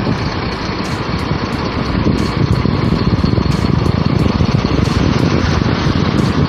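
Truck engine running as the truck drives through shallow surf, with water washing around the wheels and wind buffeting the microphone: a loud, rough, steady mix.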